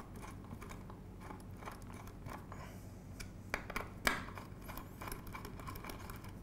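Small metallic clicks and taps of a hand driver tightening M3 screws into an aluminium channel end cap, with two sharper clicks about three and a half and four seconds in.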